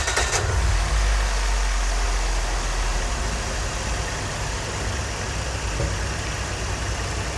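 Scion xB's 1.5-litre four-cylinder engine catching right after a brief crank, then idling steadily, at first a little fast and then settling. It is running on a new ignition coil pack fitted to cylinder 2, which has cured its misfire.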